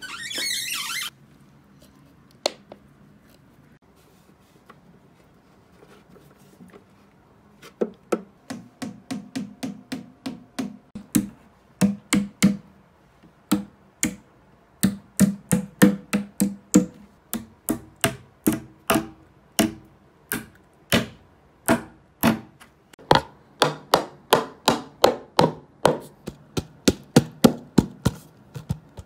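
Steel claw hammer tapping on a white particleboard flat-pack furniture panel: a long series of sharp knocks, about two a second, starting several seconds in.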